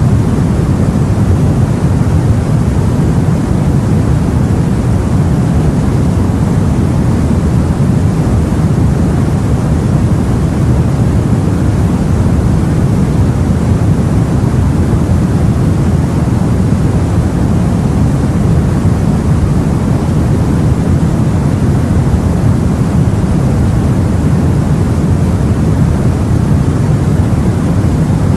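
Steady, low rumbling rush of sea and wind, even throughout with no separate wave surges.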